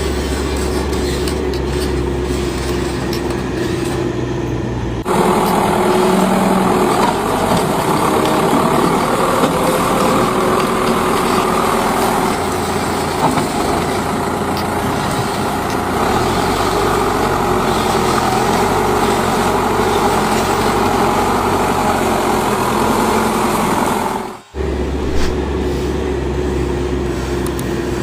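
Radio-controlled dump trucks running with a steady mechanical drone of motors and gears. The sound changes abruptly about 5 seconds in and again near 24 seconds, where clips are cut together.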